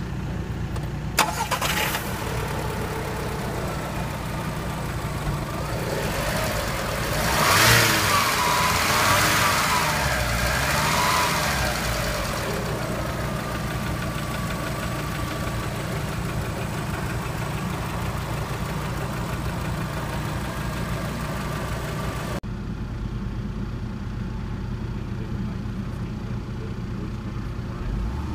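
SEAT Ibiza 1.4 16v petrol four-cylinder engine (BKY) idling steadily at about 1000 rpm, with a click about a second in. It grows louder for a few seconds in the middle. For the last several seconds it is heard from inside the car's cabin, more muffled.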